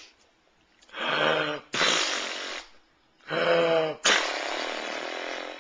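Two pretend sneezes, each a drawn-out voiced 'aah' followed by a long hissing 'choo'; the second 'choo' is the longer.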